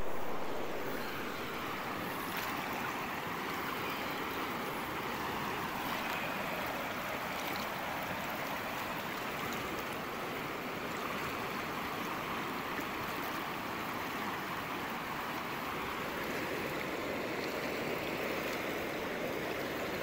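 Steady rush of a fast-flowing mountain river running over and around rocks.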